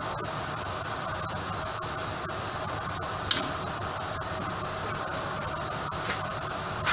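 Hand tools striking the steel steering knuckle of a truck: one sharp metallic clink about halfway through and two lighter clicks near the end, over a steady fan-like shop hiss.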